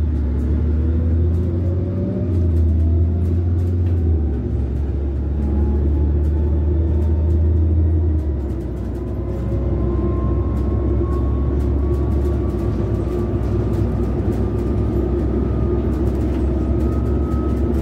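Karsan Bredamenarinibus Avancity+L CNG city bus under way, heard from inside the cabin: a steady low engine drone that changes character about four and eight seconds in, with a thin whine rising steadily in pitch throughout and light interior rattles.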